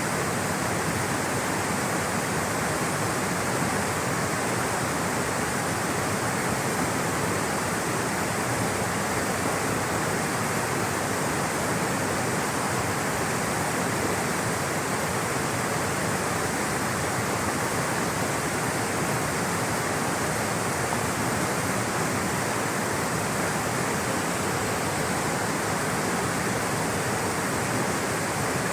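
Flowing water rushing steadily, a dense, even sound without single splashes or changes.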